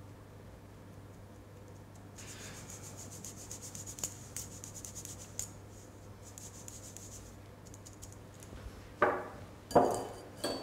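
Flour and cocoa being sifted through a fine wire-mesh sieve: a soft, scratchy rasp with quick light ticks as the sieve is shaken and tapped. Near the end come two louder knocks.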